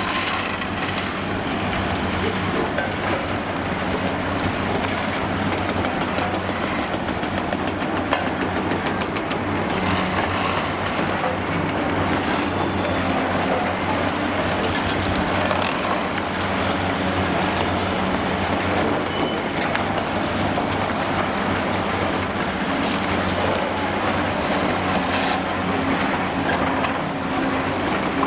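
Two large tracked demolition excavators travelling on their crawler tracks, with their diesel engines running steadily and the tracks clattering continuously.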